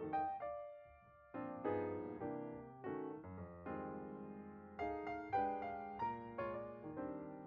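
Background piano music: a light melody of struck notes over chords, with a short pause about a second in.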